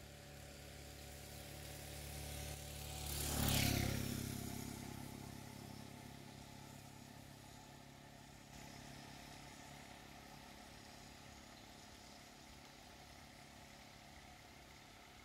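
A motor vehicle driving past: its engine grows louder over the first few seconds, is loudest about three and a half seconds in, then fades away.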